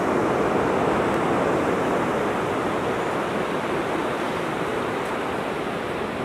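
Steady rushing wash of ocean surf on the beach, easing slightly toward the end.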